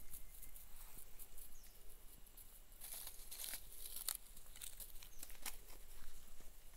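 Footsteps and movement on grass: a scattered run of soft crunches, rustles and clicks, with no barking or other calls.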